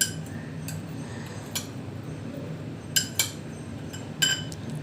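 A spoon clinking against a bowl about six times at uneven intervals, each clink ringing briefly, as garlic and ginger paste is scooped into the prawn marinade. A steady low hum underneath.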